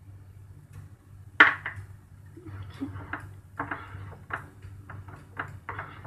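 A sharp knock about one and a half seconds in, then a plastic spoon stirring thick cream and milk in an enamel pot, scraping in short repeated strokes. A low steady hum runs underneath.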